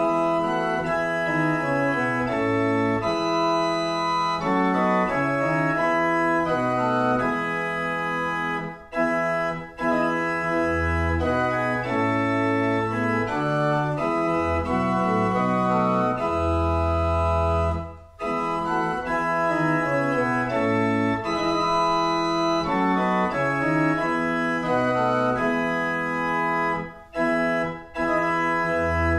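A 1760 pipe organ playing Baroque music: held chords that move in steps, with low bass notes sounding now and then. The music starts right at the beginning and breaks off briefly between phrases a few times.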